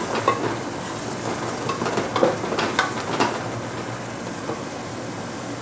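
Onions and whole spices sizzling in butter in an aluminium pot while a wooden spoon stirs them, with a few sharper scrapes and taps of the spoon against the pot.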